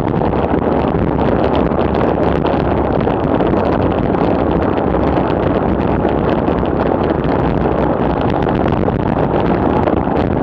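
Steady, loud wind rushing over the microphone on a bicycle descending at about 55–60 km/h.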